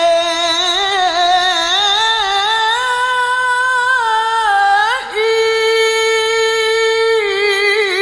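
A qari's voice reciting the Quran in the melodic tilawah style, drawing out a long vowel in winding, ornamented turns. About five seconds in there is a brief break for breath, and then a higher note is held steadily, with small trills near the end.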